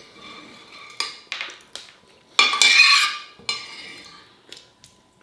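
Metal cutlery scraping and clinking against a dinner plate while eating, with a few short clinks and one longer, ringing scrape about two and a half seconds in.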